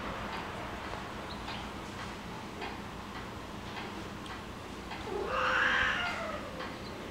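A cat meows once, a drawn-out meow of about a second starting about five seconds in, over faint scattered clicks and rustles.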